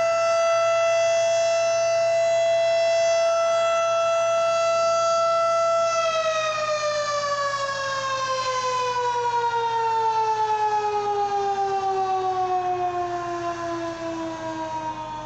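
Civil defense tornado warning siren sounding at a steady pitch, then about six seconds in its pitch starts falling slowly as it winds down at the end of its test.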